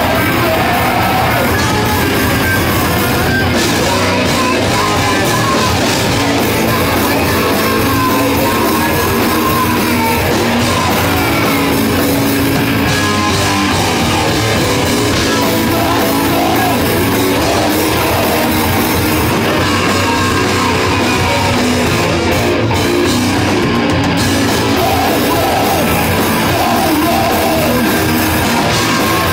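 Heavy metal band playing live and loud, electric guitars and drums going steadily without a break.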